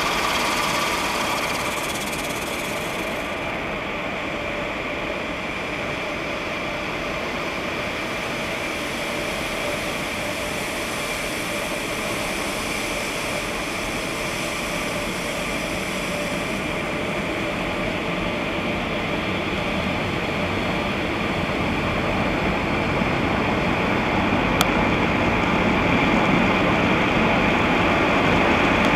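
WashTec Mark VII touchless car wash spraying the car, heard from inside the cabin: a steady rushing of water jets on the body and glass. The spray grows louder over the last few seconds, and there is a single sharp click near the end.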